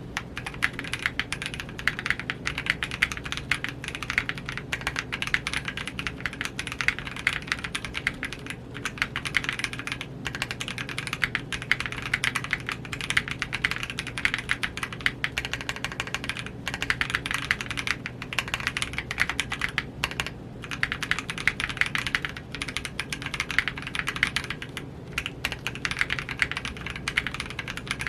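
Fast, continuous typing on a mechanical keyboard, with a few brief pauses. The keyboard is an aluminium KBDFans Tofu60 with lubed Gazzew Boba U4T tactile switches on a polycarbonate plate, fitted with Cherry-profile PBT keycaps (an HK Gaming 9009 clone set).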